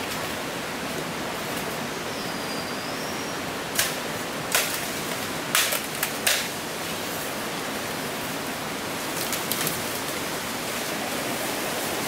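A blade chopping into a bamboo stalk: a handful of sharp knocks about four to six seconds in, and a few lighter ones near the end, over the steady rush of a stream.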